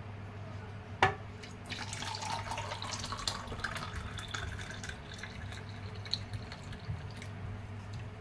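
Thick spiced sattu drink poured from a steel bowl into a glass over ice cubes, splashing and trickling, with a sharp clink about a second in. A steady low hum runs underneath.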